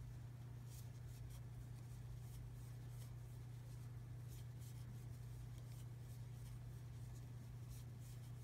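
Faint scratching and rustling of yarn being worked with a metal crochet hook, in short irregular strokes as double crochet stitches are made, over a steady low hum.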